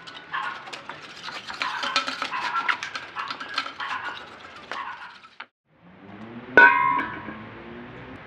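Foam insulation cracking and snapping as it is pried off a steel water heater tank, with many small clicks and knocks. After a short break, one sharp metallic clang with a ringing tone as the bare steel tank is set down on tile.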